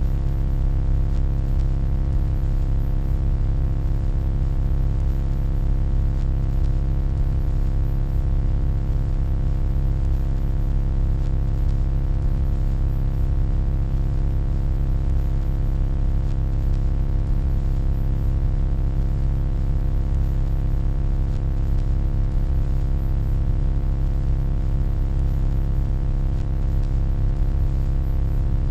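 Steady electronic hum, deep and unchanging, with a stack of steady overtones above a strong low bass.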